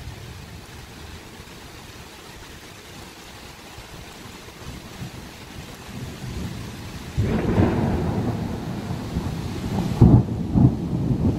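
Thunder during a rainstorm: steady rain, then a sudden clap about seven seconds in that rolls on as a deep rumble, with two sharp cracks near the end.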